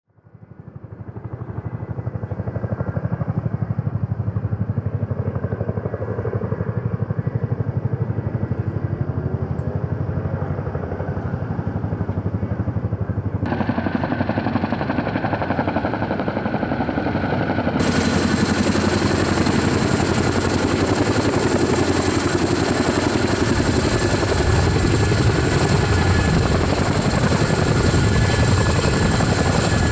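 Columbia Model 234 Chinook tandem-rotor helicopter approaching and descending to land, its two rotors beating in a rapid steady rhythm over the whine of its twin turboshaft engines. The sound fades in at the start and grows louder and fuller about halfway through as the helicopter comes in low.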